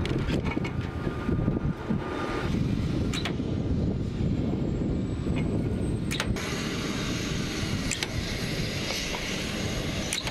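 Steady low outdoor rumble with scattered sharp metallic clicks and knocks as rockets are slid by hand into the tubes of a helicopter's rocket pod.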